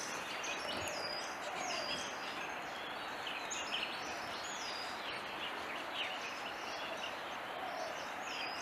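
Outdoor nature ambience of small birds chirping, short high calls several times a second, over steady background noise.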